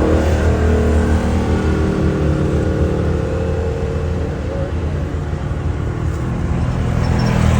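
Off-road vehicle engine running steadily, a little quieter through the middle and louder again near the end.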